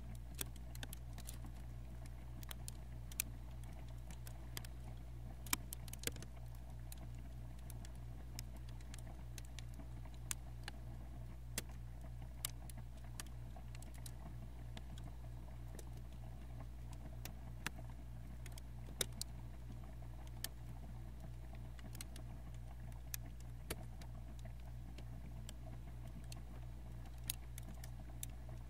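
Freezer running, heard from inside: a steady low hum with a faint higher tone above it. Irregular sharp crackles of plastic bags come every second or so.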